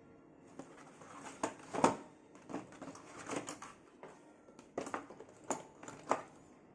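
Handling noise as a 1/6 scale action figure and its packaging are unboxed: irregular clicks, taps and short crinkly rustles, the loudest about two seconds in.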